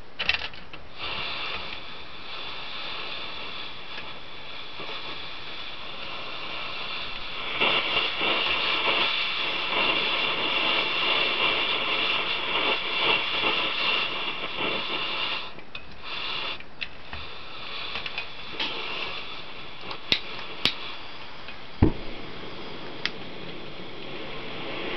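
Optimus 199 white-gas stove burner hissing steadily as it burns. The hiss grows louder from about a third of the way in and eases off again about halfway through. A few sharp clicks near the end come from the control key being turned.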